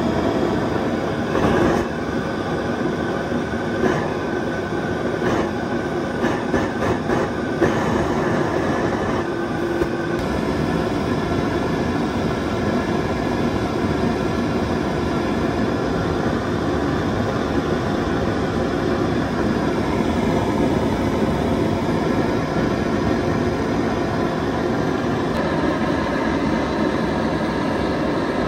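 Homemade jet engine built from a butane canister and an old tailpipe running: a steady, loud rush of burning fuel and blown air, with a run of sharp crackling pops in the first eight seconds or so.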